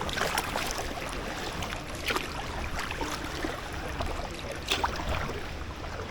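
Packraft paddle strokes on canal water, with a few splashes a couple of seconds apart over a steady low rumble of wind on the microphone.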